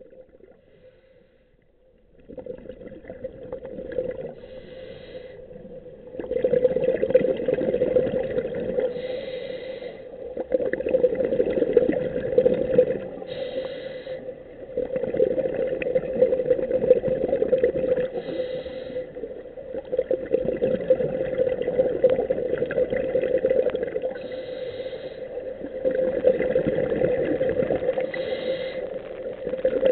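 Underwater breathing from a scuba diver's regulator: a short hiss about every four to five seconds and a rumble of exhaled bubbles in between, over a steady low hum. It starts about two seconds in, after a near-quiet opening.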